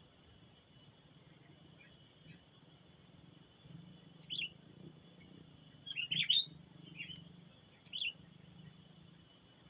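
A small songbird gives short, sharp chirps: one about four seconds in, a quick cluster of several around six seconds, then single chirps twice more, over a steady high insect trill.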